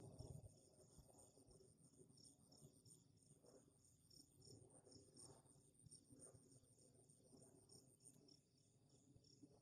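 Crickets chirping faintly, a quick, even run of high chirps that keeps going, with low rustling and handling noise underneath.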